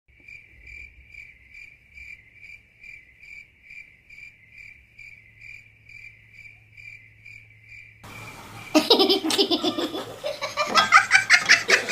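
A high, even chirp pulsing about three times a second, then giggling laughter from about eight seconds in.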